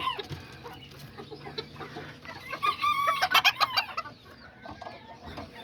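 Kikiriki bantam chickens: a rooster crows about two and a half seconds in, with clucking around it. A few sharp knocks come right after the crow and are the loudest sounds.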